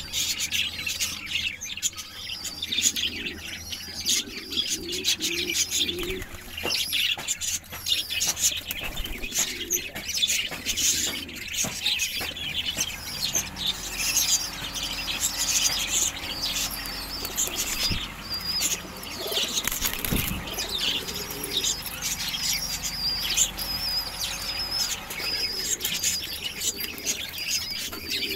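Domestic pigeons in a loft: wings flapping and fluttering with cooing, over continual high-pitched chirping. A thin, wavering high chirp runs through the last third.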